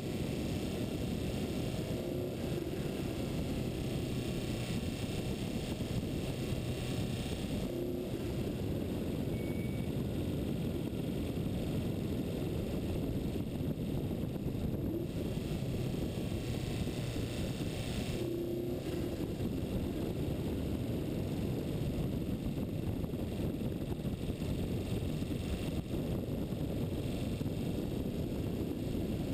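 Steady wind rush buffeting a moving camera's microphone at descending speed, a dense low rumble that keeps one level throughout.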